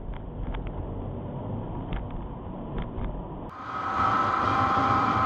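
Car driving, heard from inside the cabin as a steady low road and engine rumble with a few faint clicks. About three and a half seconds in it cuts abruptly to a louder motorcycle engine running in city traffic, with a steady high whine over it.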